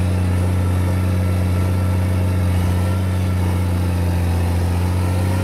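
Komatsu D50A crawler dozer's diesel engine running at a steady, even speed, a deep low drone.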